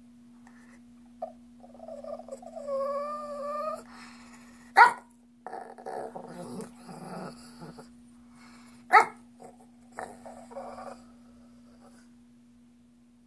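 Shih tzu begging for a treat with strange, alien-sounding vocalising: a wavering, whiny growl, two sharp yips about five and nine seconds in, and rough growling between them.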